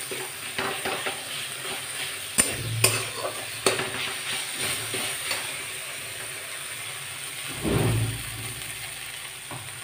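Steel spatula stirring and scraping a frying tomato masala in a steel kadhai, the food sizzling, with a few sharp clanks of the spatula against the pan in the first four seconds. A short dull thump comes near the end.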